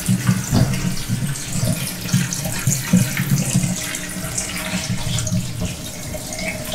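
Tap water running steadily into a sink.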